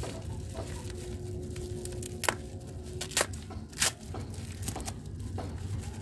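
Bubble wrap and packing tape being peeled and crinkled by hand, with small crackles throughout and three sharper crackles a bit over two, three and nearly four seconds in.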